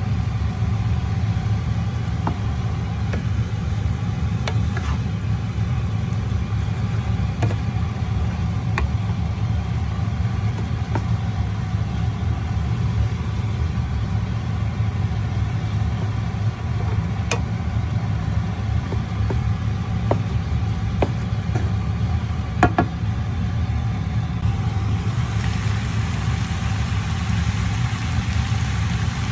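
Steady low hum under scattered clicks and taps of a wooden spatula against a frying pan as noodles are stir-fried.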